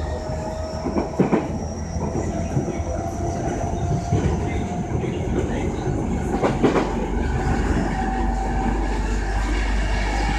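Running noise inside a JR East E233 series 2000 subseries commuter car at speed: a steady rumble of wheels on rail, with thin high tones running through it. Two sharp knocks of the wheels over the track come about a second in and again at about six and a half seconds.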